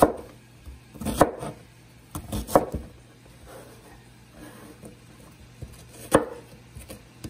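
Chef's knife dicing an onion on a wooden cutting board: separate knocks of the blade on the board, about a second apart at first, then a pause of a few seconds before another cut.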